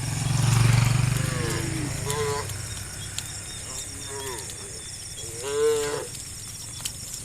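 Cattle mooing: a long, deep moo, loudest about a second in, then several shorter, higher calls that bend in pitch, the strongest a little before six seconds. A steady faint high buzz runs behind.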